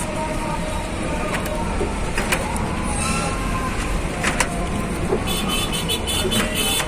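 Ride noise of a slow vehicle on a rough street: a steady low rumble with a few sharp rattling knocks, the loudest about four seconds in.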